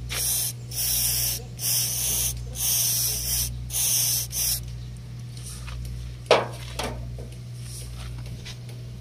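WD-40 aerosol can sprayed in five short hissing bursts onto a rusted, sticky front grille lock to loosen the rust. A single sharp click follows about six seconds in.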